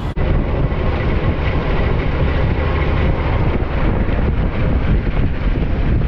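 Loud, steady rush of wind and road noise on a camera mounted low on a Royal Enfield Thunderbird 350X riding at highway speed. It cuts in abruptly just after the start.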